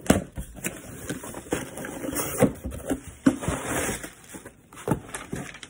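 A cardboard shipping box being handled and opened: an irregular run of short knocks, scrapes and rustles.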